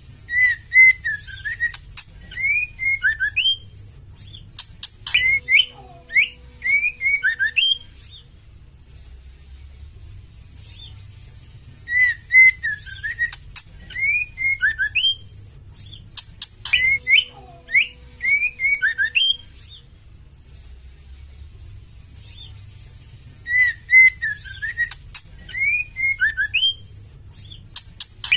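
Female white-rumped shama calling in three bouts of quick whistled notes that slide up and down, mixed with sharp high chips. The bouts come about every twelve seconds with pauses between. This female 'fighter' call is used to provoke male shamas into singing.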